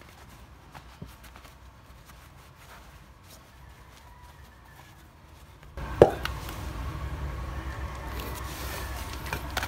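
Faint rubbing and small clicks of clutch cylinder parts being wiped with a cloth. About six seconds in comes a sharp knock, followed by a steady low rumble.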